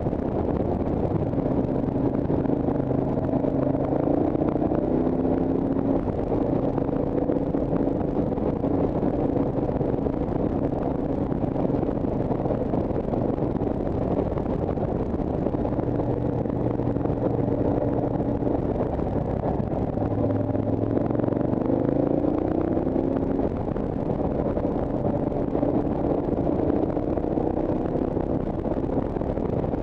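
Motorcycle engine heard from the rider's own bike, running steadily under wind rushing over the microphone; about two-thirds of the way through the engine note climbs as it accelerates, then settles.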